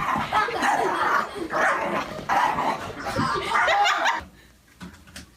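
A dog barking and yipping in four loud bursts over about four seconds, then stopping.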